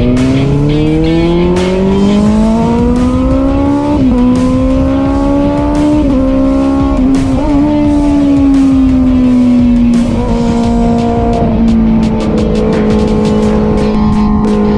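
Suzuki GSX-R600 inline-four racing engine pulling hard up through the gears, its pitch climbing and dropping a little at each upshift. It then eases off and holds a steady note.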